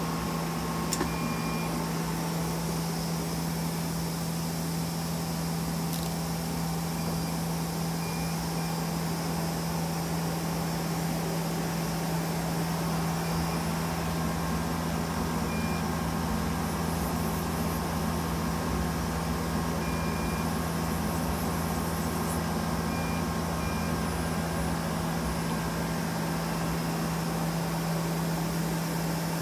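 Steady machine hum with a strong low tone from the powered-up Okuma Spaceturn LB3000-EXMYC CNC lathe, with a few faint, short high beeps now and then.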